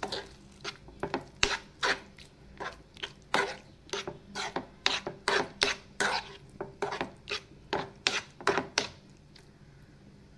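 Spatula scraping a nonstick pan, stirring thick yogurt into a masala in repeated short strokes, about three a second, that stop about nine seconds in.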